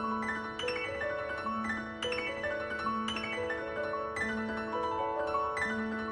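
Background piano music: a gentle melody of struck notes that ring and fade, over a low note repeated about every second and a half.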